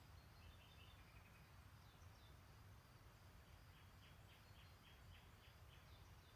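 Faint distant songbirds: a few short high chirps and, about midway, a quick trill of about eight notes, over a low steady rumble.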